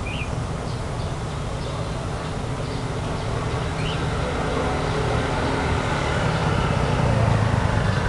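Steady low background rumble that slowly grows louder toward the end, with two faint short high chirps, one at the start and one about four seconds in.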